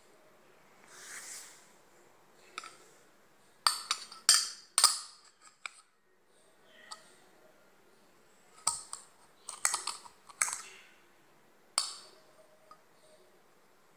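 Sharp clicks and taps of a small stone being handled and knocked on a hard white disc, coming in a few quick clusters, with a soft rubbing swell about a second in.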